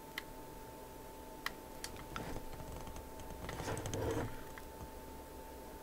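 A few light clicks and a short rustling clatter of handling, a hand moving a test lead over a circuit board inside an opened instrument, over a faint steady tone.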